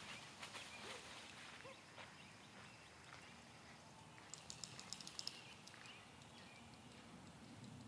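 Near-silent outdoor ambience with a quick run of faint sharp clicks about halfway through; no owl hooting is heard.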